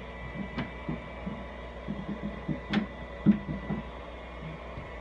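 Aquarium bottom-cleaning pump running and drawing water through a suction pipe: a steady hum with irregular low knocks and a few sharp clicks, the loudest about three seconds in.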